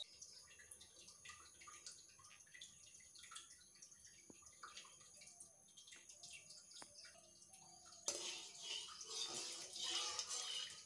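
Hot oil in a kadai, first faint scattered ticks and crackles, then about eight seconds in a potato ball goes in and the oil breaks into loud, steady sizzling and crackling.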